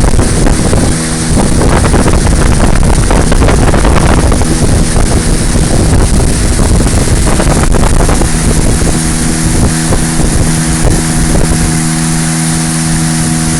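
Motorboat engine running steadily under way, with wind buffeting the microphone. In the last few seconds the buffeting eases and the engine's steady tone comes through more clearly.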